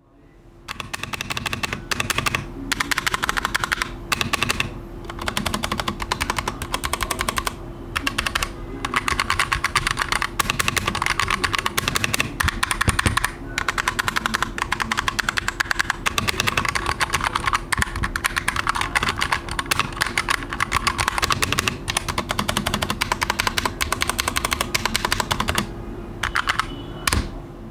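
Fast typing on a Hexgears GK707 mechanical keyboard with Kailh Box Brown tactile switches and double-shot ABS keycaps. It is a dense run of key clacks with a few brief pauses. The switches and stabilizers are not lubed.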